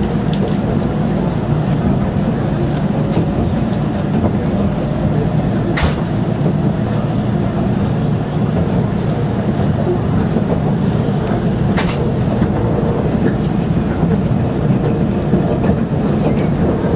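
Electric train running, heard from inside the passenger car: a steady rumble of wheels on rails, with two sharp clicks from the wheels on the track about six and twelve seconds in.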